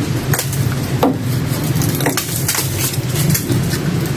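Irregular wooden scrapes and knocks as a weathered wooden coffin is handled and worked loose inside a concrete tomb niche, over a steady low hum.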